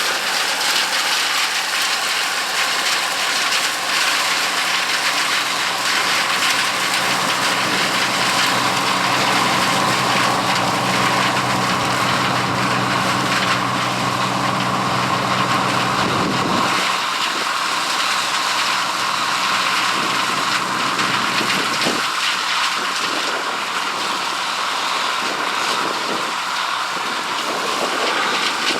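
Gleaner L3 combine running while harvesting corn: a steady mechanical din with a held whine. The deep engine hum drops away a little past halfway.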